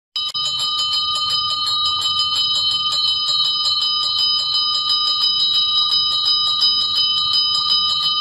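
A bell rung rapidly and continuously, its clapper striking several times a second over a steady, clear ringing tone.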